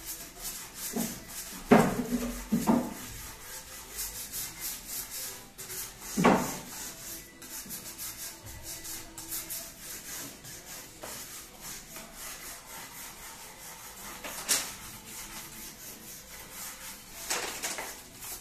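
A hand tool rubbed back and forth over a wooden tabletop in quick, rhythmic abrasive strokes, working down the old surface of the wood. A few knocks break in, the loudest about two seconds in.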